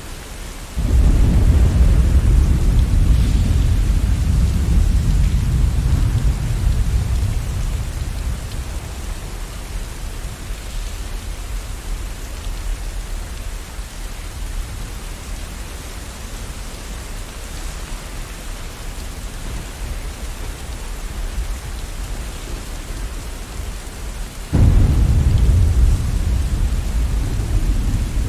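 Steady rain with two rolls of thunder: one breaks suddenly about a second in and rumbles on, fading slowly over several seconds; a second breaks near the end.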